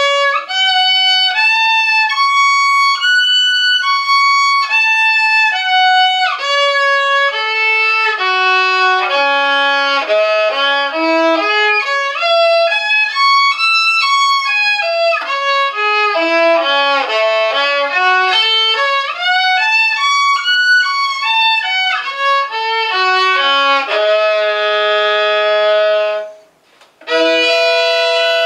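Solo violin playing C-sharp minor scale practice, bowing note by note in quick runs up and down over two octaves. Near the end it holds one long note, breaks off briefly, then sounds a final closing note.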